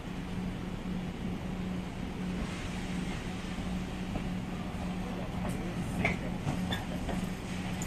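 Steady low hum over a background rumble, with a few faint clicks about six to seven seconds in.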